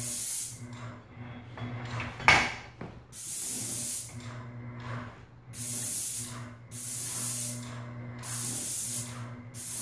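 Airless paint sprayer with a Graco 312 fine-finish tip hissing in about six short bursts of roughly a second each as the gun trigger is pulled and released over the trim. A steady low hum runs beneath, and there is a single sharp knock a little over two seconds in.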